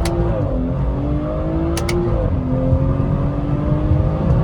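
A 2017 BMW 340i's turbocharged straight-six pulls hard under full acceleration, its pitch climbing and then falling back with each upshift, twice. A sharp double click of the magnetic paddle shifters comes just before each shift.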